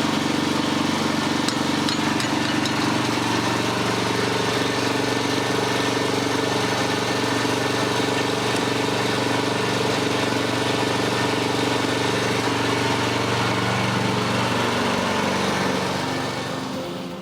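An engine running steadily at a constant speed, falling away shortly before the end.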